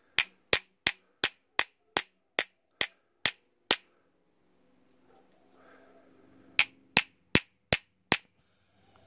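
Small hammer tapping steadily on the brass body of a Lockwood 245 padlock, about three sharp blows a second, stopping for a few seconds midway and then resuming. The tapping is meant to bring up the outline of the hidden shackle retainer pin plug.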